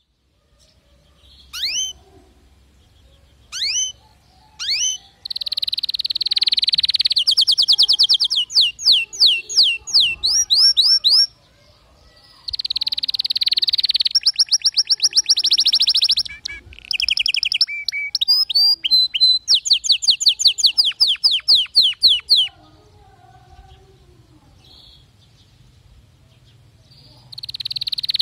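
Domestic canary singing: a few single rising chirps, then long, loud phrases of rapid trills and rolling repeated notes. The song breaks off twice and starts again near the end.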